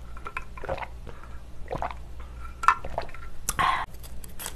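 Close-miked drinking of water from a cup through a straw, with small wet mouth clicks and swallows. About three and a half seconds in there is a short, louder bite into fried food.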